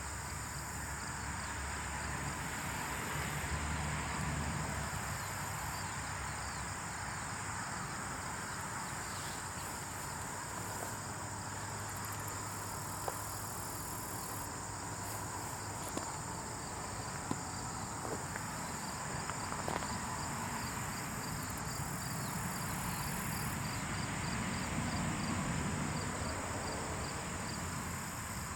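Sound effect of ants building a colony: a steady rustling hiss with a continuous high, insect-like whine and a fast, evenly pulsed chirping above it, broken by a few small sharp clicks around the middle.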